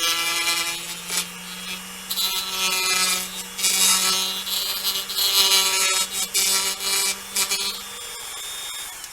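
Small handheld rotary tool with a cutting wheel running with a steady whine, grinding a groove for a wire into a plastic model-kit part in repeated harsh spells. Near the end the motor winds down, its pitch falling as it stops.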